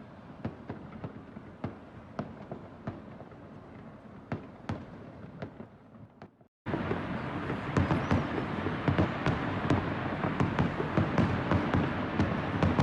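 Fireworks going off: sharp bangs about two a second, then after a sudden break about halfway through, a louder, dense run of rapid crackling pops over a continuous rush.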